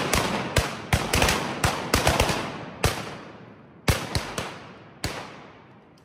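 Volley of shotgun blasts from several hunters firing at ducks overhead: a dozen or more shots in quick, uneven succession, each echoing through the timber, the last one about five seconds in.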